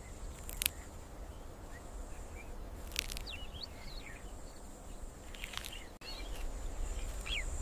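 Quiet open-country ambience: a faint steady high hiss over a low rumble, with a few short bird chirps about three seconds in and again near the end.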